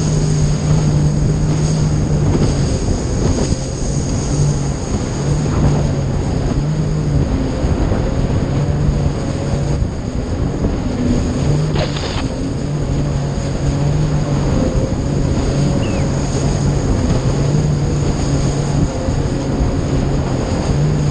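Jet ski engine running on the water under a steady rush of wind and water noise. Its low engine note drops in and out every second or two.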